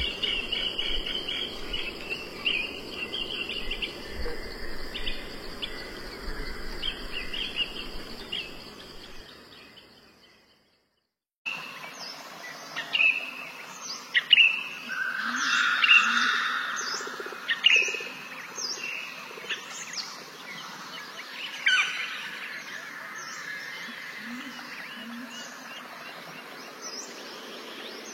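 Wild birds chirping over a steady high insect drone. The sound fades out about ten seconds in and, after a second of silence, comes back with sharp, repeated chirps and calls.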